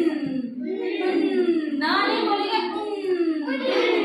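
A class of children chanting together in a sing-song unison voice, reciting the lesson aloud.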